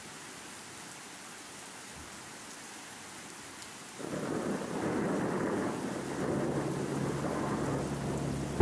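Steady rain-like hiss, swelling about four seconds in into a louder rolling rumble like thunder.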